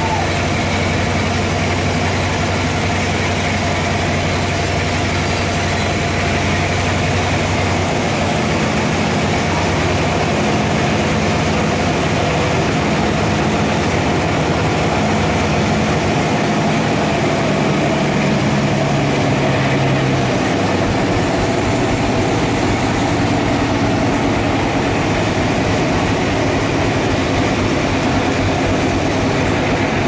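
Vertical band sawmill running with a loud, steady whir, its blade sawing a slab off a large trembesi (rain tree) log at the start. The low hum shifts about eight seconds in and again about twenty seconds in.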